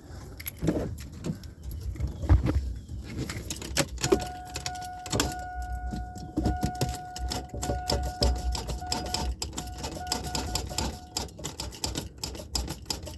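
Cranking attempt on a 2000 Oldsmobile Bravada's blown 4.3L V6: rapid clicking as the key is turned, with no sign of the engine turning over, because the engine has seized after a rod failure. A steady high electronic warning tone sounds for about seven seconds in the middle.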